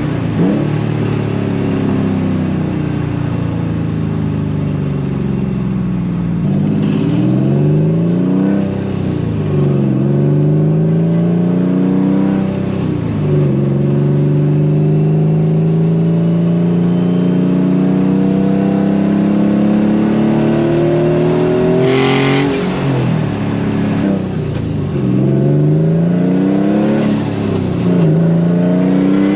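Nissan Silvia S15 engine heard from the car while driving, pulling through the gears: its pitch climbs over a few seconds, drops at each shift, then climbs again. A short hissing rush comes about two-thirds of the way through.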